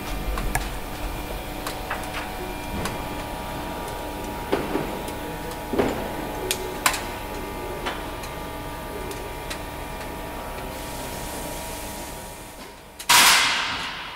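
Scattered light metallic clicks and taps of hand work with clecos on an aluminium airframe's frames and stringers, over a steady hum. Near the end comes a loud rush of noise lasting about a second.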